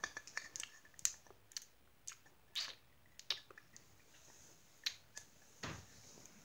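Irregular small clicks and taps of toys being handled close to the microphone, with a couple of short brushing rubs.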